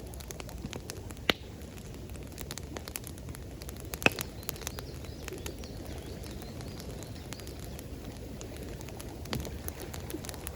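Campfire crackling, with scattered sharp pops, the two loudest about a second and four seconds in, over a steady low rush of flowing water.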